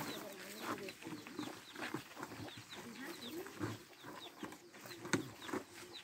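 Poultry-farm chickens clucking in short, wavering calls, with short high chirps throughout and a few sharp clicks.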